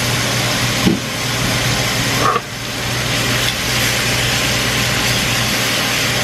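Steak frying in a pan, a steady sizzling hiss, over a running range-hood fan with a low steady hum.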